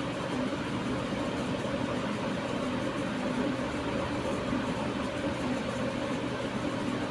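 Steady machine hum with a constant hiss, unchanging throughout.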